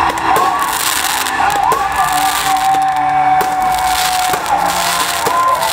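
Crowd cheering and whooping in rising and falling shouts, over a crackling hiss of fireworks going off.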